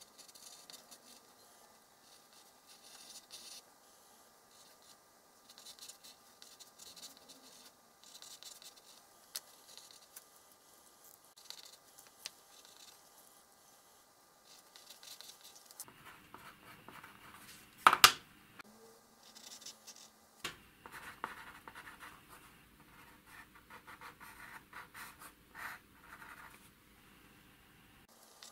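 Pencil drawing on paper: short scratchy strokes, on and off, with one sharp knock about two-thirds of the way through.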